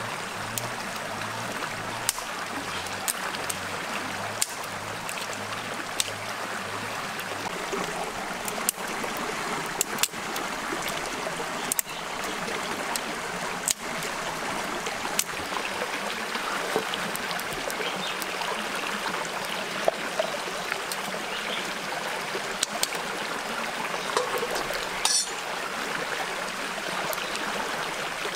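Steady rush of a shallow rocky stream, with scattered sharp snaps and crackles throughout from dry twigs being broken and a small wood fire burning.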